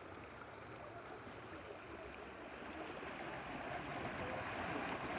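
Rushing river water in small rapids, a steady wash that grows gradually louder.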